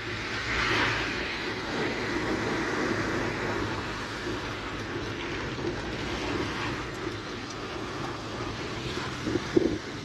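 Steady rushing noise inside a car driving through heavy rain and standing floodwater: rain on the windscreen and roof, and tyres swishing through water. A few short knocks near the end.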